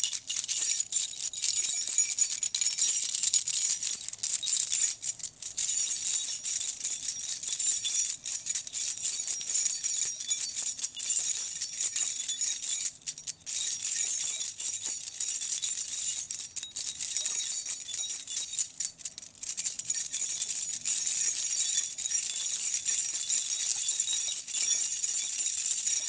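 A bunch of keys jangled and shaken almost without pause, a bright metallic jingle, broken by brief pauses about a fifth, halfway and three-quarters of the way through.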